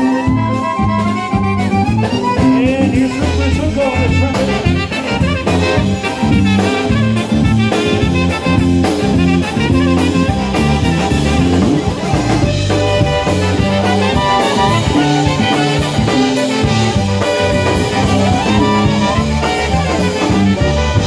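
Live polka band playing an up-tempo polka. Concertinas, clarinet and brass carry the tune over bass guitar and drum kit.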